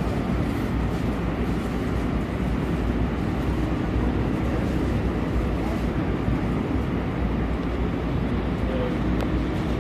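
Interior running noise of a light rail car in motion: a steady low rumble and hiss of wheels on rails, even throughout.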